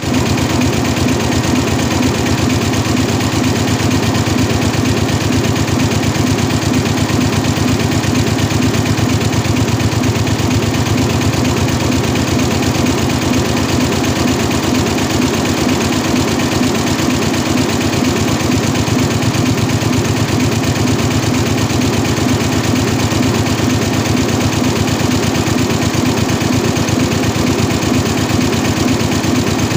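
Richpeace multi-head roll-to-roll quilting embroidery machine running, its row of needle heads stitching together in a steady, fast, even rhythm.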